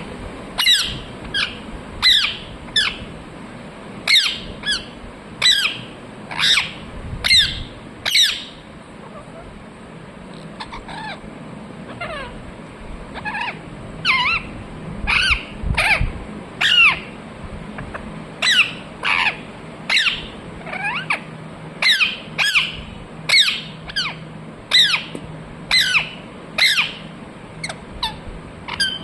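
Ringneck parrot giving a long series of short, shrill squawks, about one or two a second, each a quick sweep in pitch, with a pause of a few seconds about a third of the way in.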